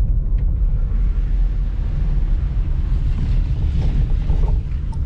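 Car cabin noise from a moving car: a steady low road and engine rumble with a hiss of wind and tyre noise over it, the hiss growing a little stronger in the second half.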